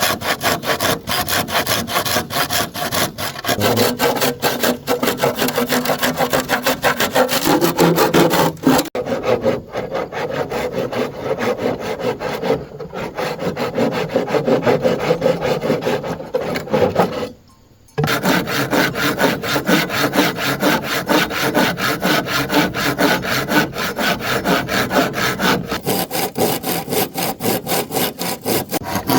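Hand saw cutting through bamboo with quick, steady back-and-forth strokes. The sawing breaks off for a moment about two-thirds of the way through, then carries on.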